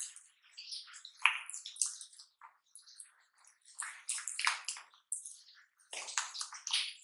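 A silicone spatula mashes and stirs thick ube halaya paste with condensed milk in a glass bowl, making uneven bursts of wet, sticky scraping with short pauses between strokes.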